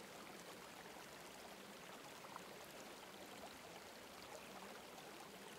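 Near silence with a faint steady hiss.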